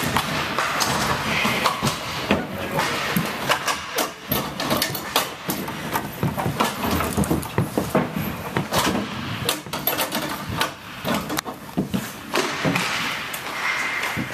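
Inline hockey play: irregular clacks and knocks of sticks and puck on the rink floor and boards, one after another with no steady rhythm.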